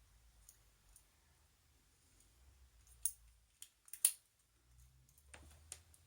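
Lock picks and tension wrenches working in two padlocks held in the hands: a handful of scattered light clicks, the two loudest about three and four seconds in.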